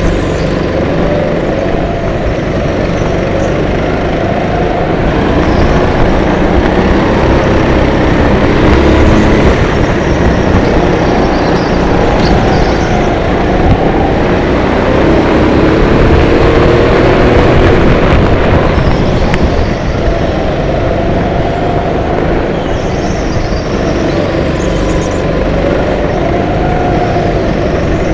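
Go-kart engines at racing speed, the kart's own engine loudest up close. The pitch climbs and drops again and again as the karts accelerate out of corners and lift off into them, over a heavy rumble.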